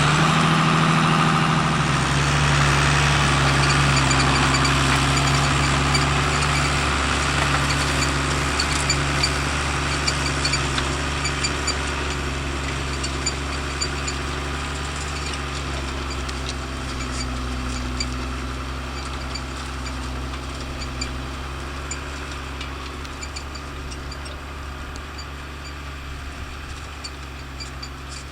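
New Holland TM120 tractor's diesel engine running steadily while pulling a four-furrow reversible plough, growing gradually fainter as the tractor draws away.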